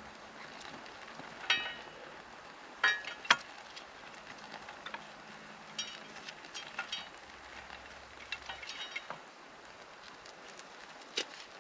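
Scattered handling sounds with sharp metallic clinks, a few of them ringing briefly, the loudest about one and a half and three seconds in.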